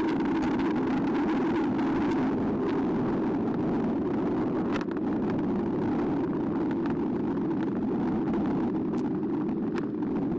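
Steady rush of wind and tyre noise from a Carbo X e-bike riding along, picked up by a bike-mounted camera, with scattered small clicks and rattles.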